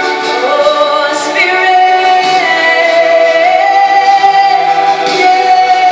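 Worship song playing: a woman's voice sings long held notes over the accompaniment.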